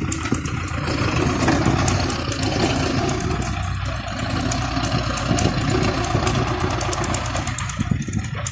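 Belarus MTZ-50 tractor's four-cylinder diesel engine running steadily with a fast light clatter, while its front loader bucket works a dirt heap.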